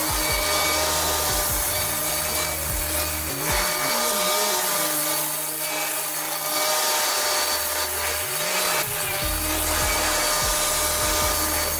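Excavator-mounted forestry mulcher drum grinding brush, a steady mechanical whine over a low drone that changes pitch twice as the load changes.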